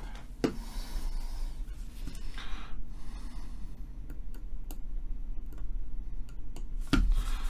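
Small metallic ticks and scratches of a steel wicking needle working cotton into the holes of an OBS Engine RTA's metal deck, with a louder click near the end, over a steady low hum.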